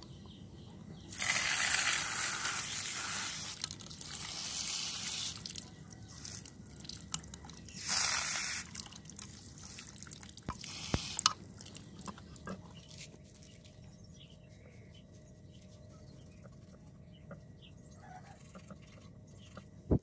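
Water sprayed from a hand-held spray nozzle onto porous coral rock, hissing in four short bursts during the first half, then only faint small ticks.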